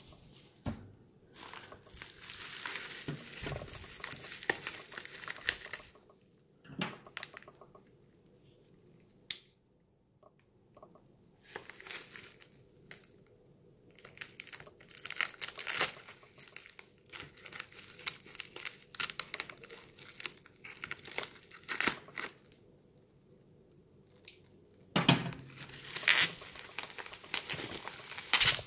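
Bubble wrap crinkling in irregular bursts as it is handled, slit with a knife and pulled open, with quiet gaps between; the loudest crinkling comes near the end.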